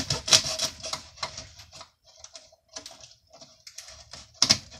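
Woven back panel of a shelf being cut with a knife and torn away: a rapid run of crackling clicks and snaps, thinning out in the middle and loud again near the end.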